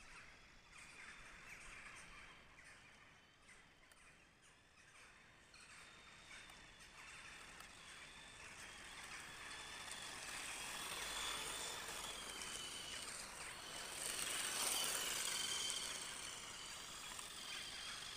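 Battery-powered RC car, tuned from 6 V to 7.6 V, driving over paving stones. Its electric motor makes a high, wavering whine, and the rolling noise grows as it comes closer, loudest about fifteen seconds in.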